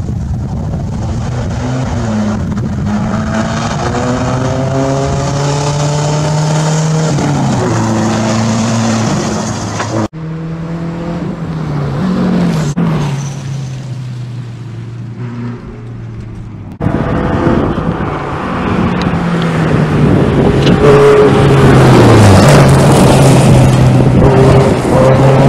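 Subaru Impreza WRX STI rally car's flat-four engine at full throttle on a gravel stage, its pitch climbing through the gears and dropping at each shift. It comes as three separate passes cut together, about ten seconds in and again a few seconds later, and the last pass is the loudest.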